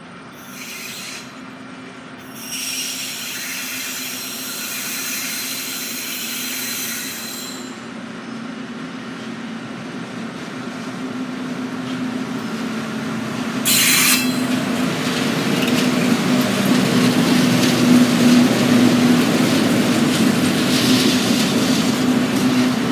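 TasRail TR-class diesel locomotives hauling a container train past, the engine drone growing louder as they approach and pass. High wheel squeal rises over the drone in the first few seconds. A sharp clank comes about two-thirds of the way in, followed by the rumble of container wagons rolling by.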